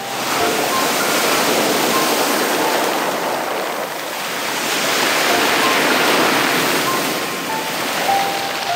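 Surf washing up and drawing back over a beach of small, round, black pebbles, with the pebbles rattling and hissing in the wash. The surf swells and falls back twice.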